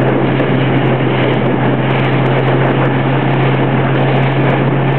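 Motorboat engine running at a constant pitch, a steady low hum under a loud, even rush of wind and water.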